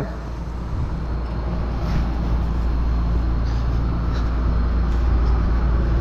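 Diesel engine of heavy farm harvest machinery running steadily, a low rumble with no change in speed.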